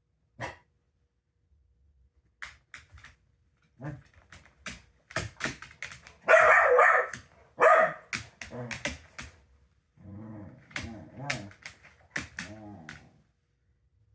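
A dog barking in a run of short barks, loudest about six to eight seconds in, followed by higher whining yelps near the end.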